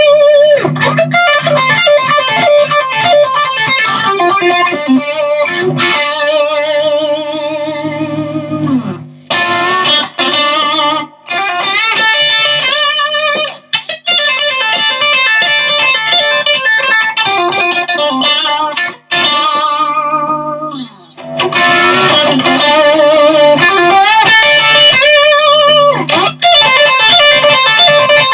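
Overdriven electric guitar with humbucker pickups playing lead phrases through a Mooer Green Mile overdrive pedal, a mini Tube Screamer clone. The lines have held notes with wide vibrato and slides, short gaps between phrases, and a busier, louder run in the last third.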